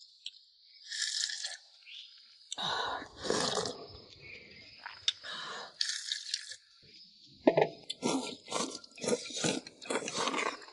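Someone eating zhajiangmian noodles in fried bean sauce, heard close up: irregular chewing and mouth sounds, turning into a quick run of chews in the second half.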